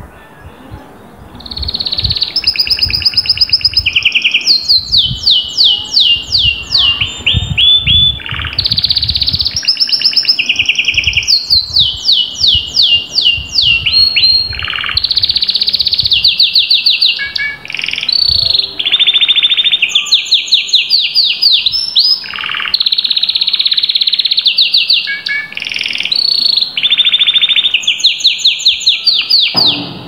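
Canary singing a loud, unbroken song of fast trills, each a quick run of the same note repeated, switching between higher and lower phrases every second or two; it starts about a second and a half in.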